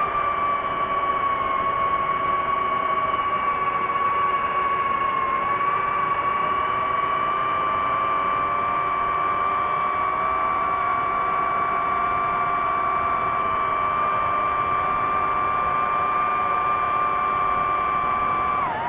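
DJI FPV drone's propellers whining steadily, several close tones wavering slightly, then dropping sharply in pitch near the end.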